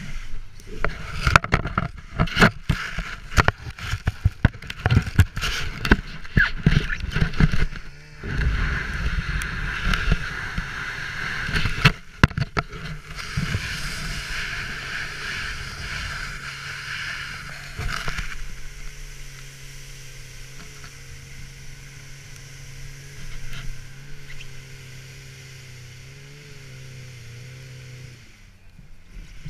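Sled sliding and bumping over snow behind a snowmobile: a run of hard knocks and thuds in the first several seconds, then a steady scraping hiss of the runners. After about eighteen seconds the snow noise drops away and the snowmobile's engine is heard running steadily, its pitch wavering slightly.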